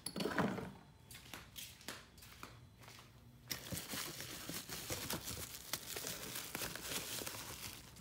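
Plastic wrapping crinkling and rustling while things are rummaged through in cardboard boxes. A few scattered handling clicks come first, then a dense, crackly crinkling from about three and a half seconds in that lasts almost to the end.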